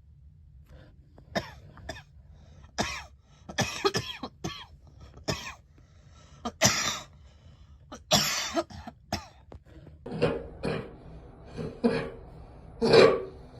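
A girl coughing over and over: about fifteen short coughs, one every second or so, some in quick pairs and threes, the loudest near the end.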